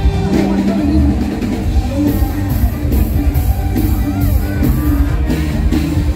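Loud live mor lam band music over an outdoor concert PA, with a heavy bass line and sustained low notes. A hi-hat ticks about twice a second from about two seconds in for a few seconds.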